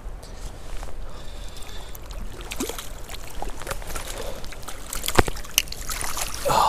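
Hooked rainbow trout splashing at the creek's surface as it is played in on a spinning rod, over steady moving-water noise, with sharp splashes about five seconds in and a louder splash near the end.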